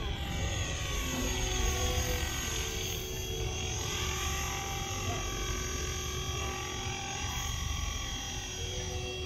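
Align T-Rex 450 electric RC helicopter flying low, its brushless motor and rotor head giving a steady high whine that slides down in pitch in the first few seconds as it moves. A low rumble runs underneath.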